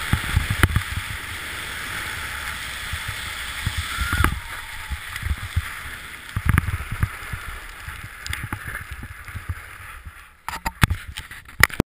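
Skis hissing over snow during a downhill run, with irregular low rumbles of wind buffeting the camera microphone. A little after ten seconds in the hiss drops away and a few sharp clicks and knocks follow.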